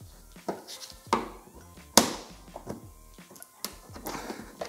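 Screwdriver and pick prying at a plastic rivet in a car's wheel-arch liner to break it out: a series of sharp clicks and snaps, the loudest about two seconds in, over background music.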